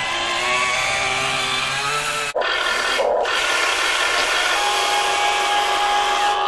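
A 1:14 RC dump truck's electric drive whines as it drives by, its pitch wavering with speed. About halfway through, a 1:14 RC excavator's hydraulic pump starts up with a steady whine as the boom lifts.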